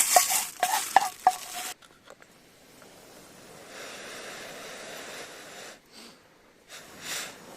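A metal utensil scraping and stirring in a cooking pan, with four ringing clinks in the first second and a half. It cuts off abruptly, and a softer steady hiss follows.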